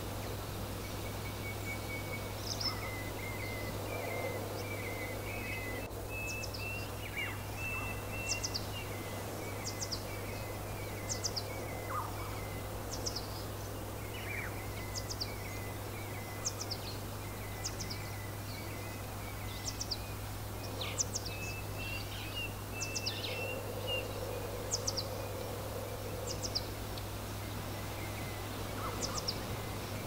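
Songbirds singing: many short, high, down-slurred chirps at irregular intervals, with a lower twittering trill, over steady wind noise and a low steady hum.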